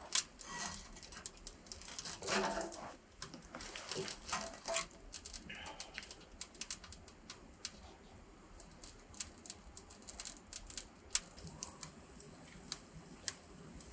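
Wood fire crackling with irregular sharp snaps and pops in a small steel wood-burning stove. During the first few seconds there is louder clatter and rustle as split logs are loaded into the firebox; after that the snaps come singly and more sparsely.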